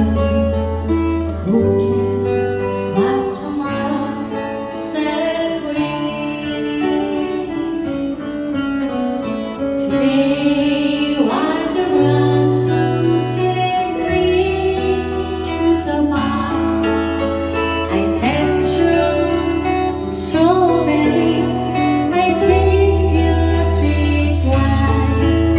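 Song with a singer over guitar accompaniment and a held bass line that changes note every few seconds.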